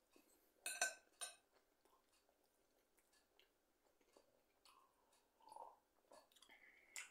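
Quiet eating sounds: two sharp clinks of a fork against the dish about a second in, then faint chewing and swallows as milk is drunk from a glass, and another sharp click near the end.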